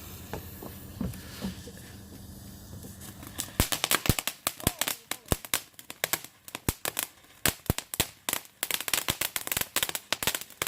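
Firework wedged inside a Christmas tree going off. About three and a half seconds in, a rapid, irregular run of sharp cracks and pops starts and keeps going.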